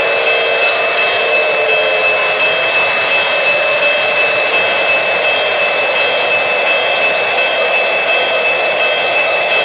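Lionel O-gauge Pennsylvania Railroad S2 steam turbine model running past, with a steady turbine whine and a high steady tone.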